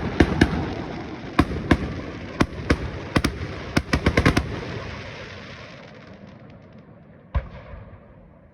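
Fireworks: a rapid run of sharp bangs in the first half, each leaving a long rumbling echo that fades away, then one more bang near the end.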